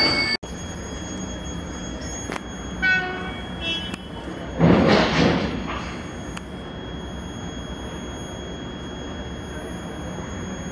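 Railway platform ambience: train wheel squeal that cuts off abruptly within the first half second, then a steady low rumble and thin high whine, with a short run of high tones about three seconds in and a brief loud rush of noise about five seconds in.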